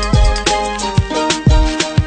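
Background music with a steady drum beat and melody.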